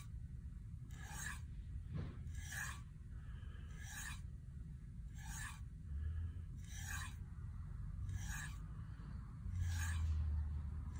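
Rasping strokes of steel or stone drawn across an abrasive sharpening surface, one about every second and a half, seven in all. A low rumble underneath swells briefly near the end.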